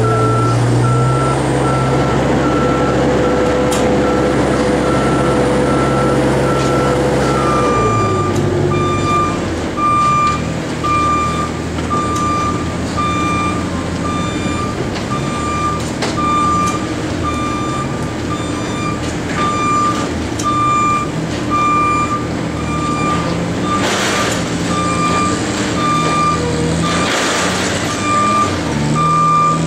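A work vehicle's back-up alarm beeping in an even on-off rhythm over its running engine. About eight seconds in, the engine note drops and the beep steps slightly lower in pitch. Two brief rushes of noise come near the end.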